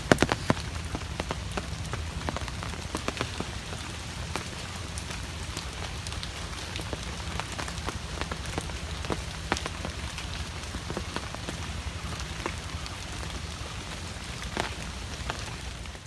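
Light drizzle falling on a pond and the leaves around it: a steady patter with scattered louder drops.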